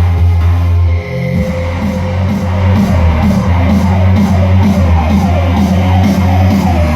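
Electronic dance music with a heavy, sustained bass played loud through a Sony Genezi ZX100D mini hi-fi system, dipping briefly about a second in.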